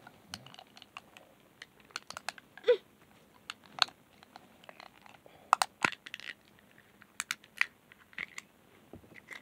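Small Hatchimals toy figures and plastic egg shells being handled close to the microphone: irregular light plastic clicks and faint rustling, with a few sharper ticks.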